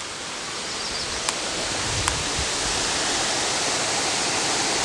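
Wind blowing over the microphone: a steady rushing hiss that builds slightly, with a couple of faint clicks.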